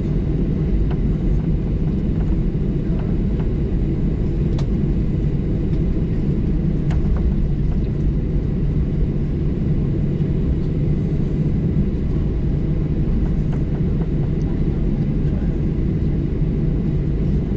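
Steady low drone of a Boeing 737-800's engines and airflow heard from inside the passenger cabin, with a few faint clicks.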